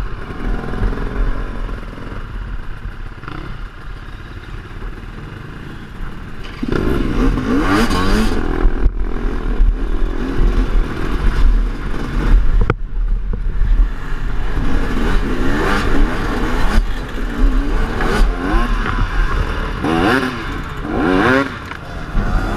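Enduro dirt bike's engine, quieter for the first six seconds, then revving up and down hard, with clattering and scraping and a sharp knock about 13 seconds in.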